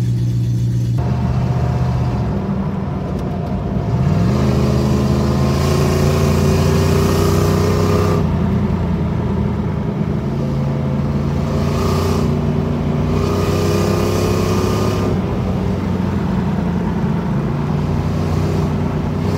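Jeep engine heard from inside the cab while driving. Its note climbs slowly as it accelerates and drops back at gear changes a couple of times, over road and wind noise. The engine is running well on its freshly replaced radiator.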